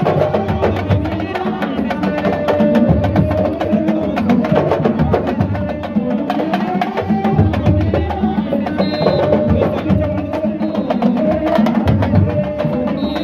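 Fast, continuous sabar drumming, many sharp strokes a second, with voices singing or chanting over it.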